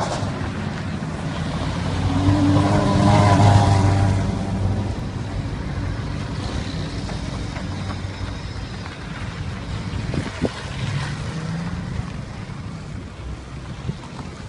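Cars driving past on the street, one passing close with its engine sound swelling to a peak about three to four seconds in and fading away; another car's engine passes later, with a couple of sharp knocks just before it.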